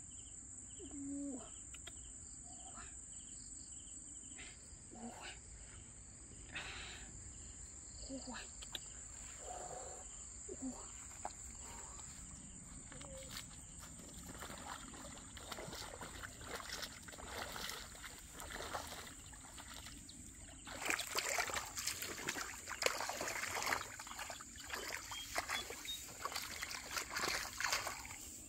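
Feet splashing and sloshing through shallow muddy water, the splashing thickest and loudest in the last third. Under it runs a steady high-pitched drone of crickets.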